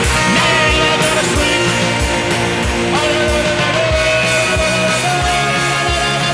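Rock music with a steady drum beat and a held melody line.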